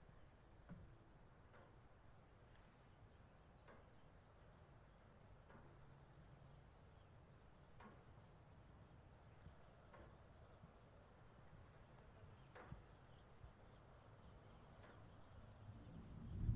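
Near silence with a faint, steady high-pitched drone and a few faint ticks; a second, lower buzz joins twice for a couple of seconds.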